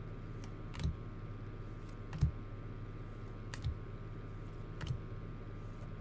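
Soft, sharp clicks about every second and a half over a steady electrical hum.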